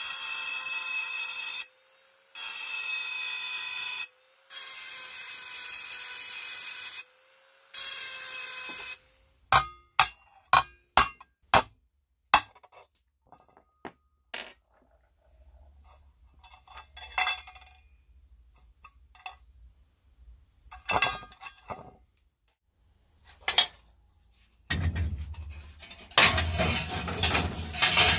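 Pen-style rotary tool with a small grinding stone grinding down the rivets of a strap on a round sheet-metal plate, in four whining bursts. Then a quick series of about eight sharp clicks and taps, and a rough scraping noise with a low rumble near the end.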